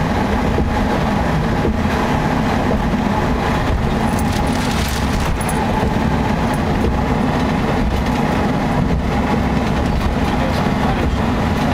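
Steady road and engine noise inside the cabin of a moving minivan.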